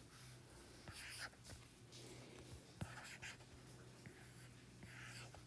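Faint scratching strokes and light taps of a stylus drawing on an iPad's glass screen, with one sharper tap about three seconds in, over a low steady hum.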